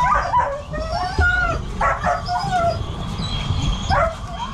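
Several muzzled greyhounds whining and yelping, with many short, high cries rising and falling in pitch. They are excited and eager to chase the lure.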